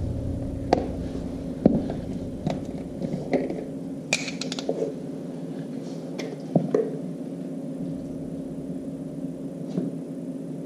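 Scattered light clicks and taps with a brief rustle about four seconds in, over a steady low hum: hands handling the oil filler cap and oil bottle on a motorcycle engine.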